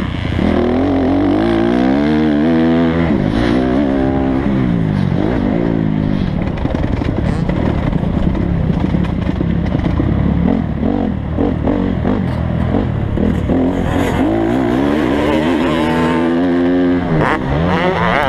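Motocross dirt bike engine revving hard and falling off again and again as the rider accelerates, shifts and rolls off through the track's turns and jumps, heard close up from on the bike.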